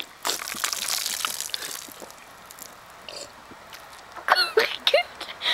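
Soda poured from a plastic cup into a mouth packed with tampons, splashing and spilling for about two seconds. A few short vocal sounds follow near the end.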